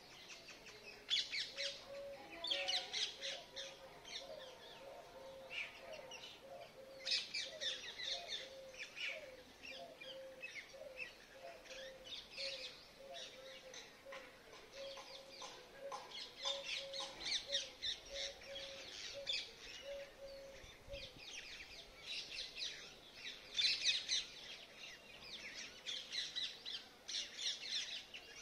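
Several birds chirping and calling together, with dense high chirps coming in bursts throughout. Under them runs a steady series of low, evenly spaced notes, about two a second, that stops about three-quarters of the way in.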